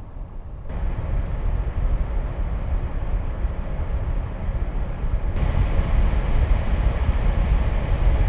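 NZXT Kraken Z63 280mm AIO's 140mm radiator fans running with a steady rushing air noise. They get louder in two steps, about a second in and again about five seconds in, as the fans ramp up from about 1120 to 1850 RPM.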